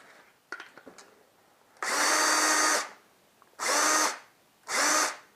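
An electric drill runs in short bursts: three runs of about a second or less, and a fourth starting near the end, each whine rising in pitch as the drill spins up. It is turning the drive of a reassembled motorcycle speedometer to test it. A few light clicks of handling come just before the first burst.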